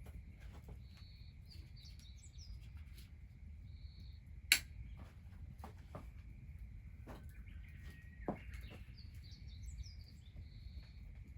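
Birds singing in short chirping phrases, twice, over a wood fire crackling with scattered pops. The loudest is a sharp crack about four and a half seconds in.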